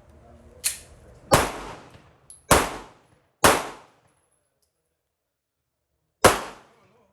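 Pistol shots at a firing range: a lighter crack, then three loud shots about a second apart and a fourth after a pause of nearly three seconds.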